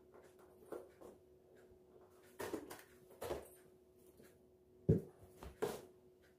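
Cats clawing and batting at a cardboard box: a string of short scratching and scraping noises on the cardboard, with a sharper thump about five seconds in, the loudest.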